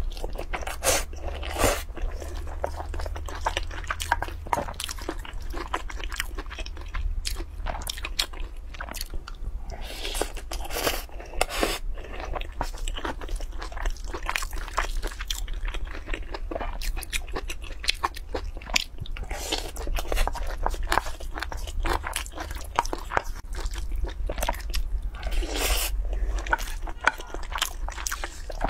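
Close-miked eating: wet chewing and crunching with many short smacking mouth clicks, and now and then a wooden spoon scraping through food in a metal pot. A steady low hum runs underneath.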